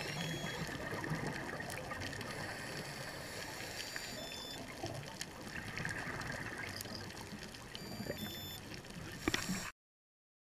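Underwater ambience picked up by the camera: a steady watery hiss with bubbling swells from divers breathing through scuba regulators, and scattered clicks. It cuts off abruptly near the end.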